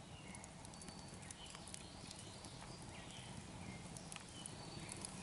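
Wood campfire burning down to embers, crackling and popping softly in irregular clicks, with a few faint high chirps in the background.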